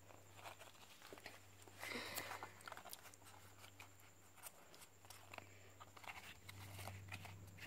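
Faint rustling and light clicks of a stack of Pokémon trading cards being handled and fanned through, a little louder about two seconds in, over a low steady hum.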